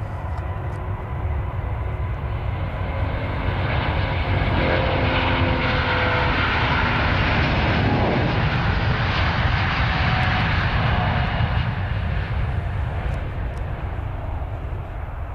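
Rolls-Royce Trent XWB turbofans of an Airbus A350-900 at takeoff thrust on the takeoff roll: a deep rumble with a whining fan tone that swells to its loudest about halfway through, the whine dropping in pitch as the jet passes, then easing off.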